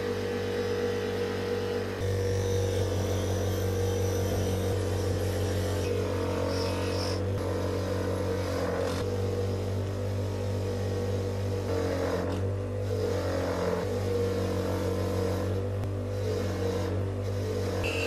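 Bench grinder fitted with a buffing wheel running with a steady mains-frequency hum while metal coffee-grinder parts are held against the spinning wheel to polish them. Background music with changing notes plays over it.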